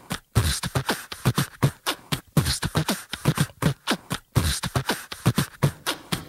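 Percussive beat without melody, in the manner of beatboxing: deep thumps mixed with sharp clicks and hissy snare-like hits, several a second in an uneven rhythm.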